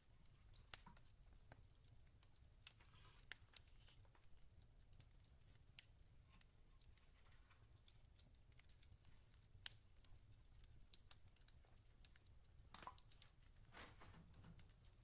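Faint wood fire crackling in a fireplace: irregular sharp pops and snaps over a low rumble, with one louder pop about ten seconds in.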